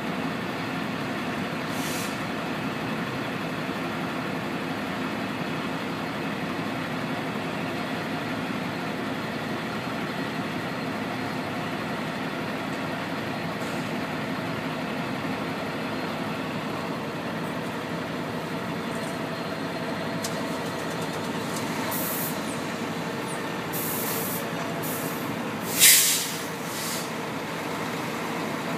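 EWS Class 66 diesel locomotive's two-stroke V12 engine running steadily while shunting steel wagons. Several short, sharp air hisses from the brakes come near the end, one much louder than the others.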